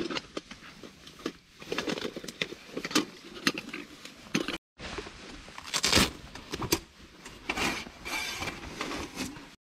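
Camping gear being handled: a drawstring stuff sack rustling and light metallic clinks of a titanium cooker and its lid, then a folded titanium table with a wire grill sliding out of its cloth bag and clinking.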